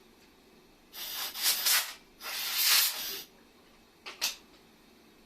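Hissing blasts of pressurised gas from a nozzle: two blasts of about a second each, then two short puffs near the end.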